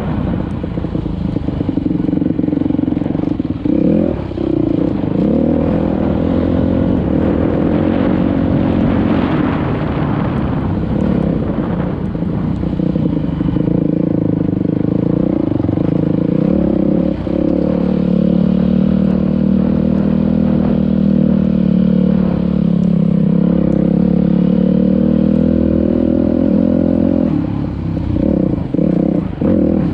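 Dirt bike engine running under steady throttle while riding, its pitch rising and falling with speed, heard from the rider's helmet. Near the end the throttle is chopped and reopened several times in quick succession.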